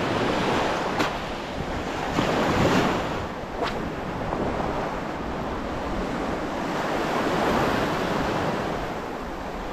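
Small waves breaking and washing up a shingle beach, the surf swelling and easing, with wind buffeting the microphone. Two sharp clicks stand out, about a second in and again around three and a half seconds.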